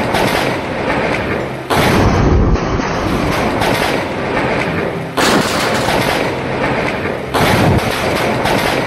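Thunderclap from a lightning strike very close by: a sudden loud crack followed by a noisy rumble, heard three times a couple of seconds apart, over a steady wash of rain and wind noise.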